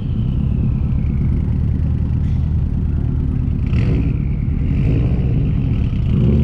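Car engine running with a deep, steady exhaust rumble and a higher whine that slides down in pitch over the first couple of seconds and again near the middle.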